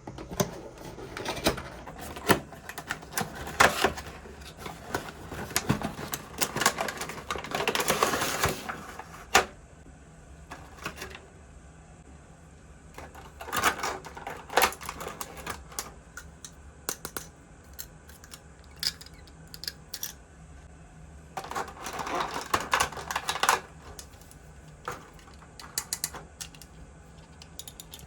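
Small plastic toys and their packaging being handled: irregular sharp clicks and taps, with a few longer bursts of rustling and crinkling.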